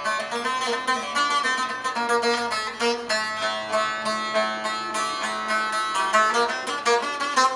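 Saz, a long-necked lute, played solo in a quick run of plucked notes: an instrumental passage between sung verses.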